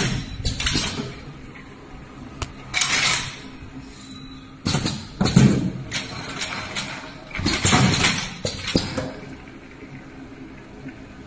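Automatic spout-pouch filling machine running: loud noisy bursts with clatter every two to three seconds over a steady low hum, with a sharp click about two and a half seconds in.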